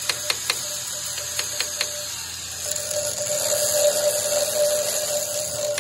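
Ratchet wrench clicking in short, even strokes, about four clicks a second, on the hub nut of a dozer final drive. From about three seconds in a steady whine with hiss takes over, louder toward the end.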